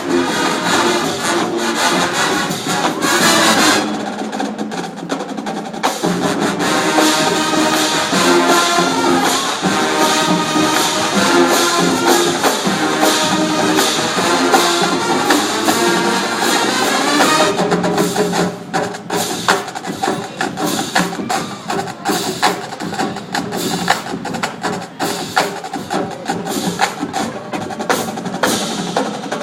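Marching band playing, brass and winds over percussion. From about 17 seconds in, the percussion carries the music with rapid sharp hits while the held notes thin out.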